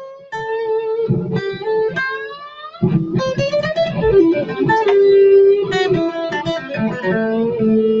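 Electric guitar playing a melodic single-note lead phrase: held notes with an upward bend about two seconds in, a short pause, then quicker notes ending on a long held note.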